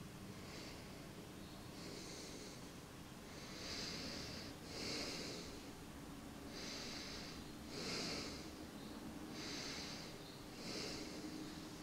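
A person breathing in and out close to the microphone: soft hissy breaths every second or so, over a faint steady hum of room tone.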